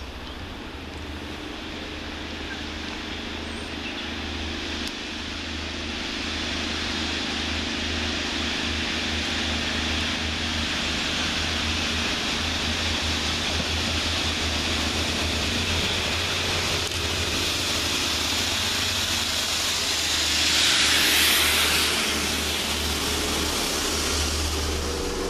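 Windhoff multi-purpose vehicles working as a rail head treatment train, running through on diesel power with a steady low engine rumble. The noise builds as they approach and is loudest about 21 seconds in, with a rush of higher-pitched noise as they pass.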